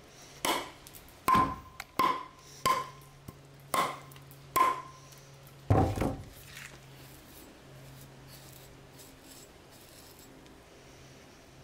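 Hand-forged hatchet chopping into the end of a weathered wooden board, six sharp strikes with a slight ring, roughly one a second. About six seconds in, the board lands on a wooden stand with a heavier, deeper thump.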